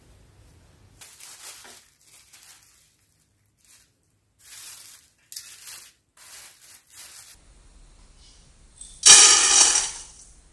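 Clear plastic film crinkling in several short bursts as it is spread over a tray of dough balls. About nine seconds in, instant coffee granules pour from a small jar into an empty stainless steel bowl, a loud rattle lasting about a second.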